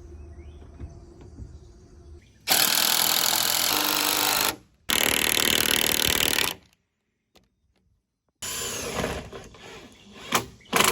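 A power tool running in two bursts of about two seconds each, half a second apart, then starting up again near the end.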